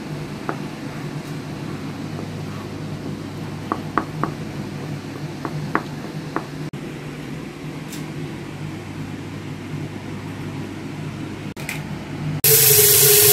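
Kitchen knife chopping hard-boiled eggs on a plastic cutting board: a scattering of sharp taps of the blade against the board over a steady low hum. Near the end a loud rushing hiss starts abruptly.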